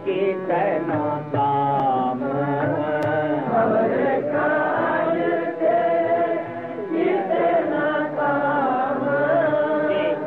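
Gurbani kirtan: voices chanting a sung line in a gliding, ornamented melody over a steady low sustained accompaniment.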